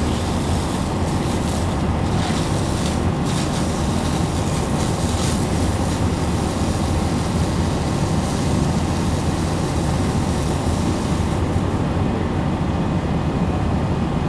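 Steady low rumble of fire engines running at the fire scene together with the large fire burning, with a few sharp pops in the first few seconds.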